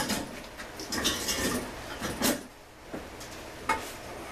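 Small metal tools and chainsaw parts clinking and knocking on a workbench: a handful of sharp knocks, with a short rattling cluster about a second in.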